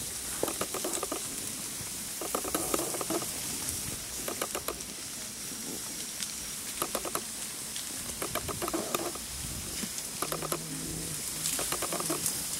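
Tall elephant grass rustling and crackling, in bursts about every two seconds.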